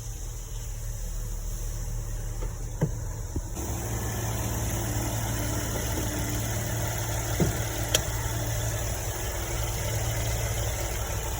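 Porsche Cayenne six-cylinder engine idling steadily after its blocked injectors were cleaned, now running smoothly without the misfire. It gets a little louder about three and a half seconds in, and a few light clicks sound over it.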